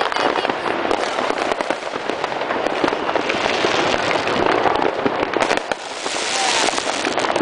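Fireworks and firecrackers going off in a dense, continuous barrage of pops and crackles. A hissing crackle swells near the end.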